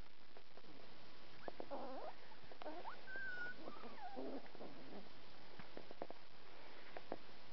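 Corgi puppies whining and yipping as they play-fight, a run of short, bending cries in the middle few seconds.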